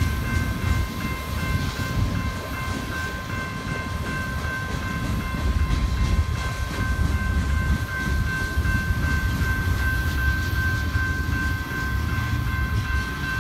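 Freight train's tank cars and covered hopper cars rolling past at a level crossing: a steady low rumble of steel wheels on rail, with a thin, steady high-pitched ringing tone over it.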